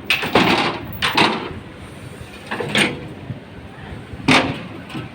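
Sewing machines being unloaded: a few separate knocks and scrapes from the machines and metal lifting gear, with voices.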